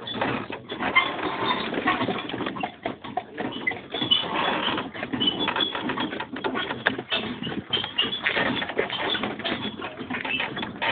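Horse-drawn wagon rolling along behind a team of two horses: a steady, irregular rattling and clattering of the wagon and harness, with a few faint high squeaks.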